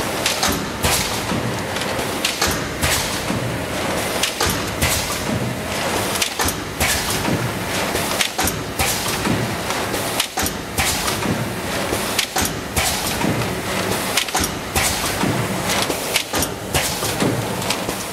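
GC 650/500 automatic plastic thermoforming machine running, a steady mechanical clatter broken by repeated sharp clacks and knocks as it forms, cuts and stacks plastic containers.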